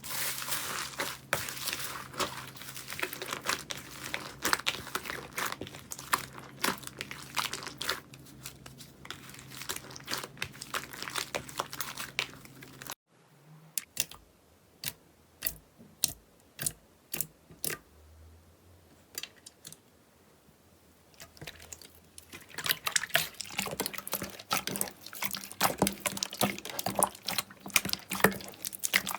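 Slime being squeezed and pressed by hand, giving dense crackling and popping. About 13 seconds in the sound cuts to sparse single pops, and near 22 seconds dense crackling starts again.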